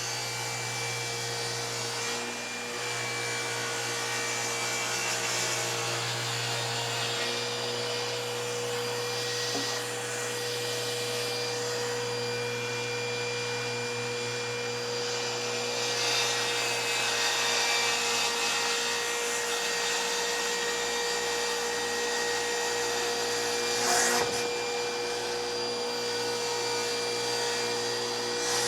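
Table saw running with a steady motor whine while cutting a large sheet of Baltic birch plywood. It gets somewhat louder about halfway through, with one sharp knock near the end.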